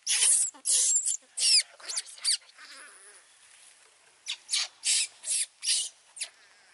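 Baby macaque giving a rapid run of short, high-pitched squeals. After a pause of nearly two seconds comes a second run of about six more.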